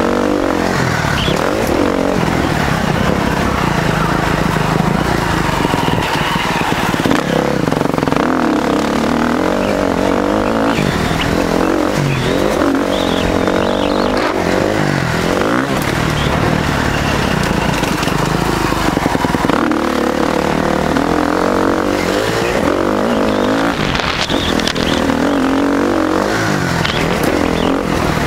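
KTM 350 SX-F's single-cylinder four-stroke engine being ridden hard, its pitch rising and dropping over and over as the rider accelerates, shifts and backs off.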